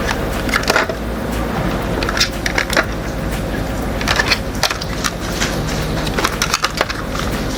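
Diecast model trucks being handled: irregular clicks, taps and scrapes of small metal and plastic parts, over a steady low hum.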